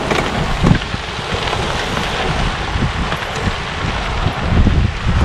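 Bicycle tyres rolling over a gravel road as a stream of riders passes, with wind buffeting the microphone in irregular low gusts.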